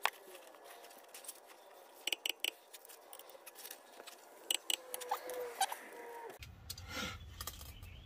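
Sharp metallic clicks of a socket wrench tightening the rear brake caliper bracket bolts, heard as a single click at the start and then quick groups of three about two seconds in and again around four and a half seconds.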